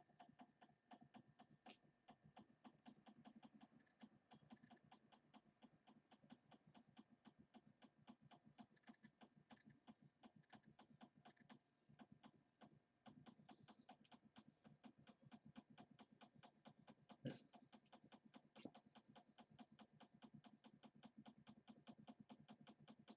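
Faint, rapid, even clicking of a computer mouse scroll wheel being turned to scroll through a long list, about four to five clicks a second, pausing briefly about halfway.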